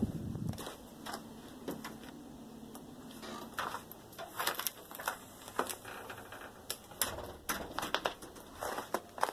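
Irregular crisp clicks and crunches of frozen snow and ice, coming thicker after the first few seconds, with a dull thump right at the start.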